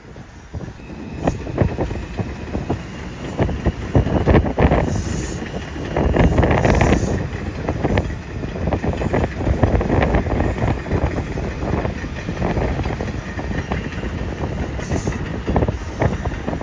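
New York City Subway 4 train running on the track: a steady rumble with many irregular sharp knocks of wheels over rail joints, and a faint high whine.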